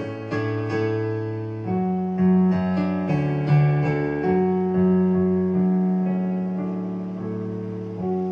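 Piano playing slow chords, each struck and left to ring out and fade; a long chord is held from about halfway, and a new chord is struck near the end.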